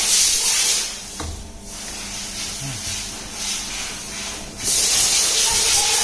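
Loud, high hiss of escaping steam that drops away for about four seconds and comes back strongly near the end, with a faint steady hum underneath.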